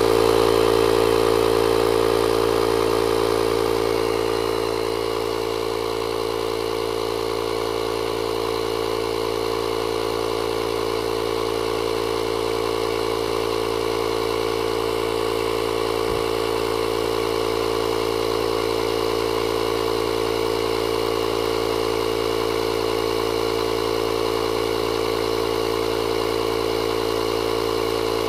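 Small 12-volt air compressor built into a JFEGWO 6000A jump starter running steadily with a constant drone, pumping up a tire, the pressure slowly climbing.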